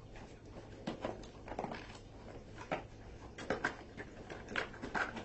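A small parts box being worked open by hand, with a string of light clicks and rustles from the packaging and the parts inside.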